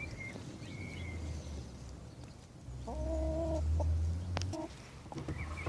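A hen calling: one held, even-pitched call of under a second about halfway through, with faint high chirps near the start.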